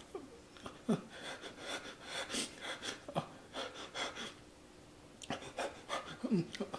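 A man panting hard through an open mouth from the burn of the Paqui One Chip, an extremely hot chili-pepper chip, in quick, uneven breaths. Near the end come several short moans, each falling in pitch.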